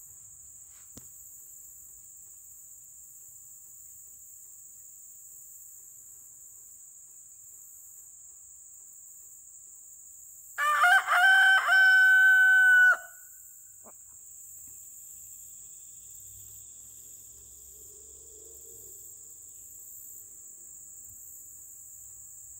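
A rooster crows once, a loud call of about two and a half seconds that ends in a long held note, about ten seconds in, over a steady high chirring of crickets.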